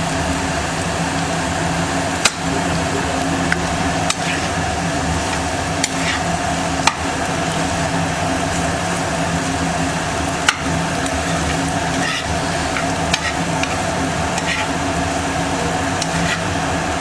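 Mashed boiled potatoes frying in oil in a pan, sizzling steadily as they are stirred and browned, with a spatula clinking sharply against the pan now and then. A steady hum from the kitchen chimney runs underneath.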